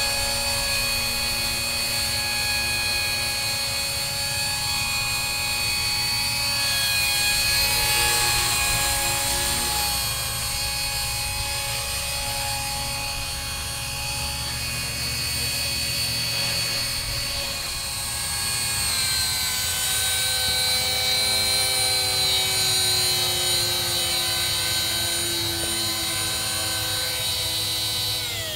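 Matrix 250R electric flybarless RC helicopter flying and hovering: a steady high-pitched whine of motor and rotor with a rotor buzz beneath it, rising and dipping in pitch a few times as the pilot works it. Right at the end the pitch starts to fall as it sits down on the grass and spools down.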